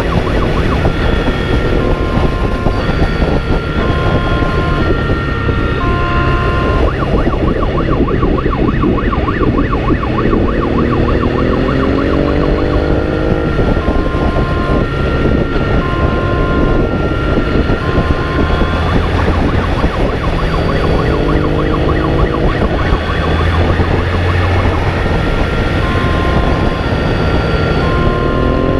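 Police motorcycle in pursuit at speed: a loud wind-and-road rush, the engine's note rising as it accelerates hard, three times, and a two-tone siren alternating steadily, switching to a fast warble for several seconds.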